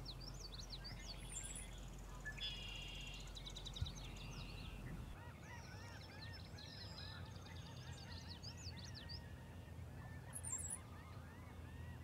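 Several songbirds calling and singing together: mixed chirps, trills and thin high whistles, with a run of repeated short notes in the second half.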